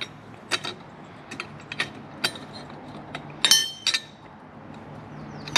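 Metal clicks and clinks as a flat steel clutch holding tool is fitted by hand over a motorcycle's clutch hub and basket, with one louder ringing metal clink about three and a half seconds in.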